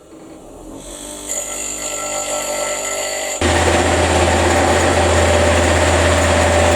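Electric drill running with a long bit, drilling a hole through steel. It builds up gradually, then about three and a half seconds in jumps to a much louder, steady running noise with a deep hum.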